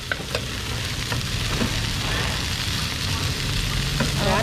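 Minced garlic frying in hot oil in a pan of stir-fried noodles and greens: a steady sizzle, with a few sharp clicks in the first half-second.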